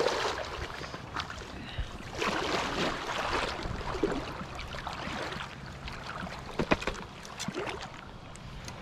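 Small trout stream water running and splashing while a hooked brown trout is fought, with the splashing swelling about two seconds in and a few sharp splashes later on.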